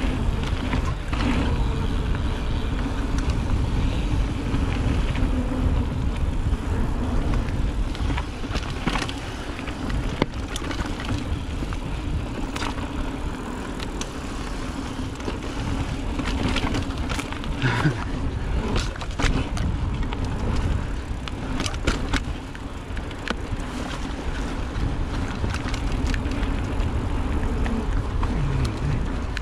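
Mountain bike rolling fast down a dirt trail: steady tyre noise over the ground with scattered rattles and knocks from the bike, under a heavy rumble of wind on the microphone.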